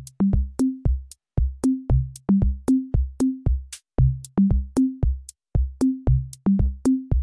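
Electronic background music: a drum-machine beat with short, stepping bass notes, about four a second.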